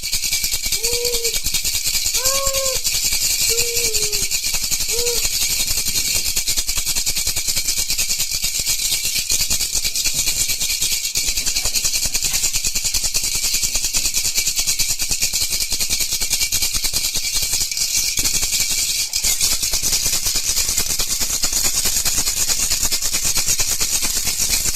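A baby rattle (jhunjhuna) shaken continuously, a dense, steady, high rattling of small beads. A few short high-pitched squeaks come in during the first five seconds.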